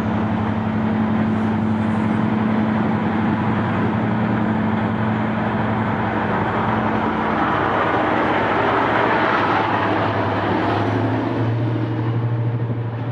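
Class 55 Deltic diesel-electric locomotive with only one of its two Napier Deltic 18-cylinder two-stroke engines running, passing close by. It makes a steady low hum over a loud drone of running noise. The drone swells about two-thirds of the way through as the locomotive's body draws alongside.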